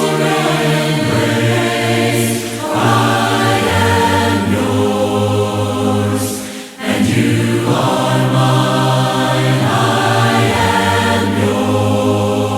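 A choir singing a hymn a cappella in held harmony, with no instruments, breaking off briefly between phrases about halfway through.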